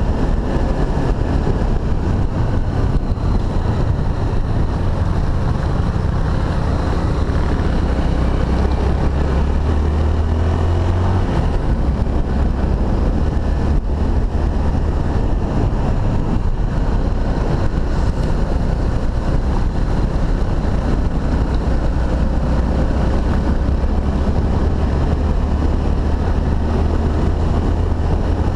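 Honda XRE300's single-cylinder four-stroke engine running steadily under way on a dirt road, heard from on board the bike, its note shifting about eleven seconds in.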